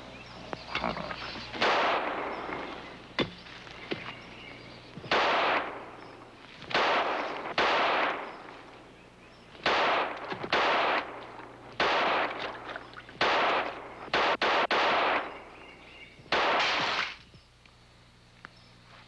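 A dozen or so gunshots fired one after another at uneven intervals of one to two seconds, each with a short echoing tail, with a quick run of shots about three-quarters of the way through.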